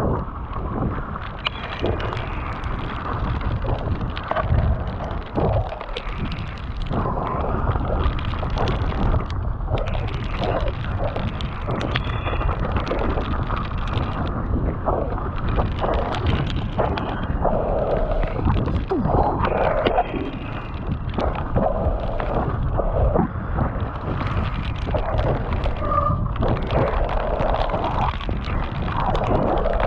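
Mountain bike riding down a rough, wet trail: a continuous rush of wind on the camera microphone and tyre noise, with the frame and chain rattling and knocking over rocks and bumps.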